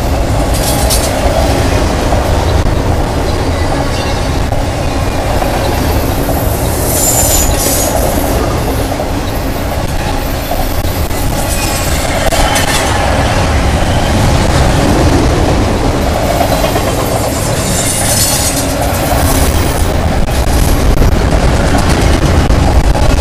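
Intermodal freight cars carrying highway trailers on flatcars rolling past close by: a steady heavy wheel rumble with clickety-clack over the rail joints. A couple of brief high squeals from the wheels come through, about seven seconds in and again near eighteen seconds.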